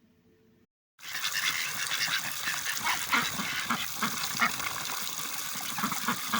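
Ducks quacking, many short calls close together over a steady rushing background, starting abruptly about a second in.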